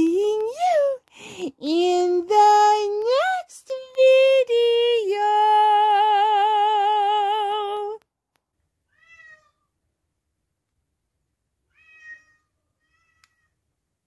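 Drawn-out meowing in a high voice: several short rising-and-falling meows, then one long held note with vibrato that stops about eight seconds in. A few faint short meows follow.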